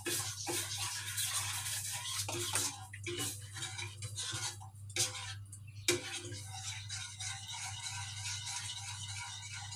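A utensil stirring béchamel sauce briskly in a stainless steel saucepan, making rapid scraping strokes against the metal as milk is worked into the roux to keep it from going lumpy. A low steady hum runs underneath.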